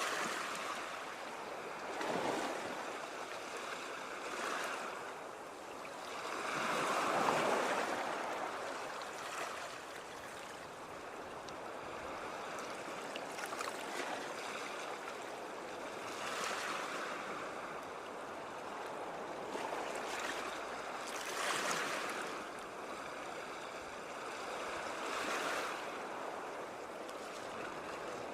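Ocean waves breaking and washing onto the shore: a steady hiss of surf that swells with each breaking wave every few seconds.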